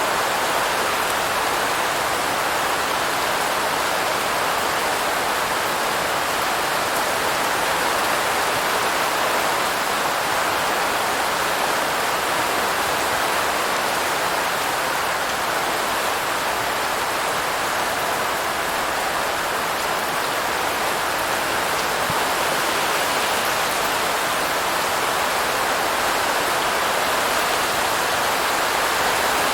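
Steady heavy rain falling, an even hiss of countless drops with no distinct single drips or thunder.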